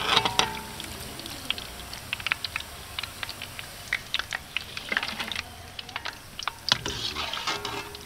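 Hot oil crackling and popping in a large iron kadai as onion pakoda deep-fry, with irregular sharp pops throughout. A metal clank of the slotted frying ladle against the pan near the start.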